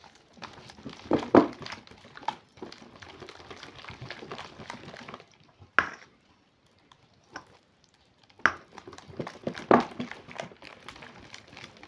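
Thick batter being stirred with a spatula in a stainless steel bowl: irregular wet squelching and scraping, with a few sharp knocks against the bowl, four of them standing out.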